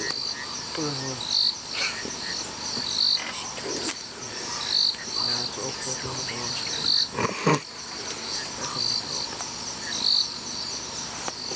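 Night chorus of insects: a steady high trill with a louder chirp repeating about once a second. A brief louder noise cuts in about seven seconds in.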